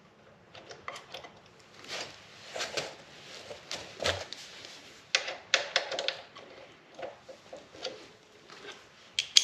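Scattered light clicks and metallic clinks of hand tools and small steel parts being handled during mechanical work, with soft rustling in between and one sharper click near the end.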